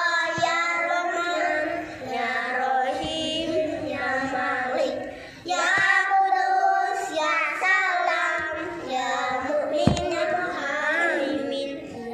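Children's voices chanting Quran verses in Arabic in a continuous melodic recitation, with one brief knock about ten seconds in.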